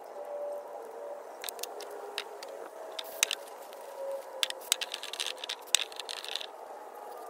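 Scattered sharp clicks and light scraping from hands working with tools and small engine parts. The loudest clicks come about 3 seconds and 6 seconds in.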